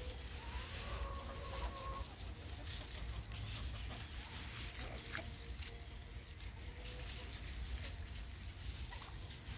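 Flock of chickens clucking quietly, with a few long, held calls, amid light clicks and rustling.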